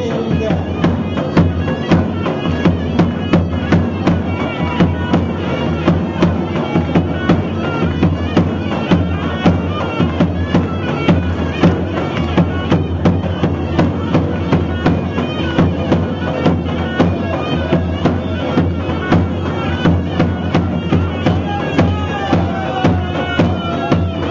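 Turkish folk dance music: a loud, reedy wind instrument playing a melody over a steady drum beat of about two strokes a second.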